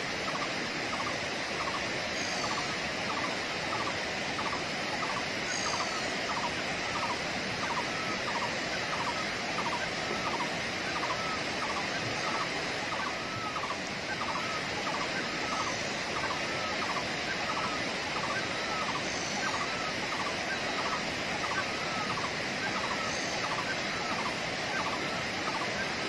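Steady rush of water spilling over small waterfall cascades into the pools, with an unseen animal's rapid, evenly repeating call running through it and a few short, high bird chirps.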